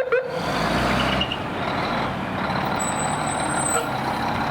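1986 Mack MC686 fire rescue truck's diesel engine running steadily as the rig moves, with a brief rising tone at the very start and a rush of noise with a deeper rumble for about the first second.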